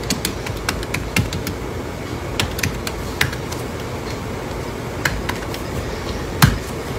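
Typing on a computer keyboard: a quick run of keystrokes, then scattered single clicks, with one louder click about six and a half seconds in, over a steady low background hum.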